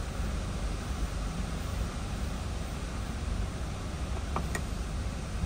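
Strong hurricane wind buffeting a parked car, heard from inside the cabin as a steady rushing noise with a low, uneven rumble.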